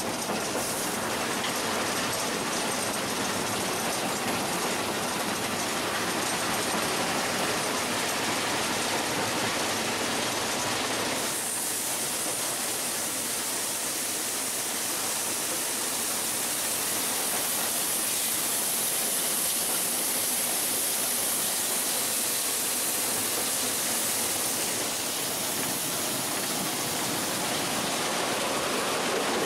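Cab noise of steam locomotive 498.104 running: a steady wash of running gear and rail noise with steam hissing. About 11 seconds in the sound shifts to more hiss and less of the lower rumble.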